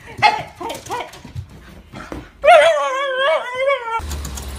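Shiba Inu whining and yipping excitedly in greeting: a few short yips in the first second, then a long wavering whine that falls away at the end.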